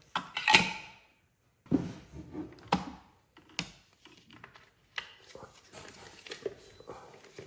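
Plastic clicks and knocks from a wireless hair dryer and its charging adapter being handled and connected for charging. There is a louder clatter in the first second, then sharp single clicks about a second apart, fainter toward the end.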